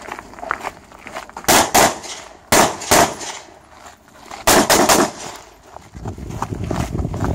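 Semi-automatic AR-style rifle fired in three quick pairs of shots (double taps) during a timed stage, each pair a fraction of a second apart, with about a second between pairs.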